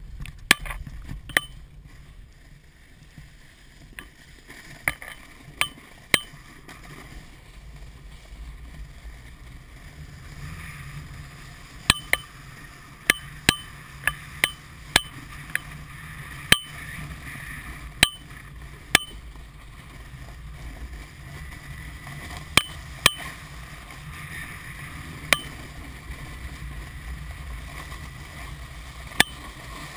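Rumble and hiss of riding down snow with wind on a moving camera's microphone, broken by many sharp, ringing clicks at irregular intervals, roughly one or two a second.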